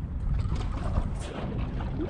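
Waves slapping against the hull of a small drifting boat, over a steady low rumble of wind on the microphone.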